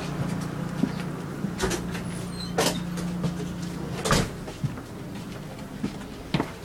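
Railway passenger-car doors opening and closing as people pass between cars, with several sharp knocks and clacks. Under them runs a steady low hum that drops away about four seconds in.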